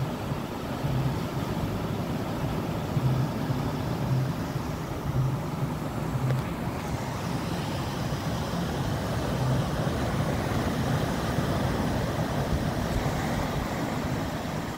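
Steady wind noise on the microphone over the wash of surf breaking on the beach.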